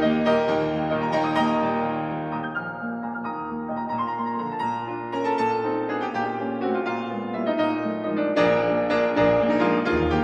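Background piano music, a run of notes played one after another.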